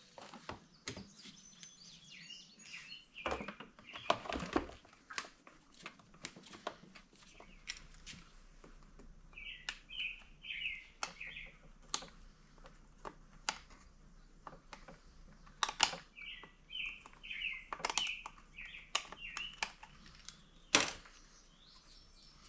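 Scattered clicks and knocks of tools and small parts being handled, the loudest a sharp knock near the end. Birds chirp in short runs three times over the same stretch.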